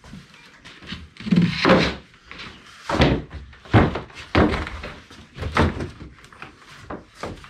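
Hollow-core interior door and its wooden split jamb knocking and bumping as the pre-hung unit is handled and set into the rough opening: a string of irregular dull thunks.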